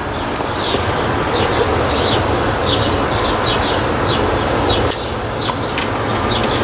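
Steady city street traffic noise with a small bird chirping over it, short high falling chirps two or three times a second. A couple of sharp clicks sound near the end.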